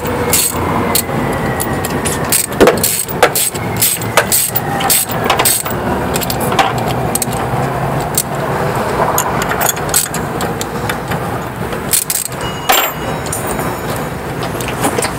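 Frequent sharp clicks and knocks of hand tools and metal parts being handled while battery cable terminals are worked on, over a steady low rumble like a vehicle running nearby. The two loudest knocks come about two and a half seconds in and near the end.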